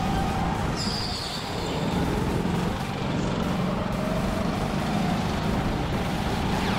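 Go-kart running flat out on an indoor track, heard from on board: a steady motor hum with tones that rise and fall slightly with speed, and a brief high whine about a second in.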